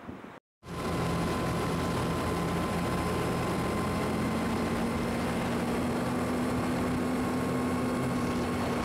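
Mowag Duro all-terrain truck driving at a steady speed, heard from inside the cab: an even engine drone with road and wind noise. It cuts in after a moment of silence just under a second in, and a steady hum joins about four seconds in.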